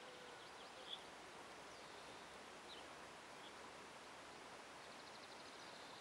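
Near silence: faint rural outdoor ambience with a few faint, short, high chirps.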